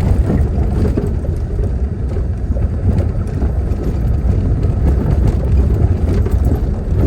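Steady low rumble of a small car driving at speed on a highway, engine, tyre and wind noise heard from inside the car.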